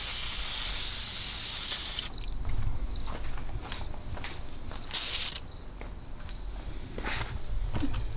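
Aerosol can of penetrating oil spraying onto a rusty engine block: one long hiss of about two seconds, then a short burst about five seconds in. Insects chirp steadily throughout in a fast pulsing rhythm.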